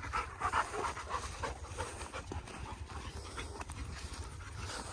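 Dog panting: short breaths a few times a second, with a steady low rumble underneath.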